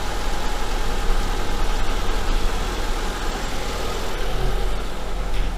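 Sens car's four-cylinder petrol engine idling steadily while it warms up just after a rebuild, with new connecting-rod small-end bushings; it runs without a knock.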